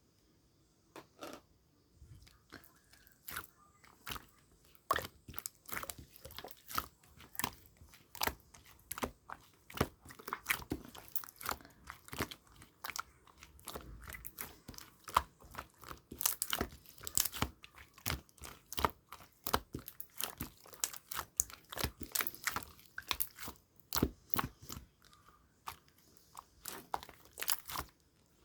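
Clear slime being squeezed, stretched and folded by hand, giving off a run of small sticky clicks and pops as trapped air bursts. The clicks are sparse at first and come thick and fast from about five seconds in.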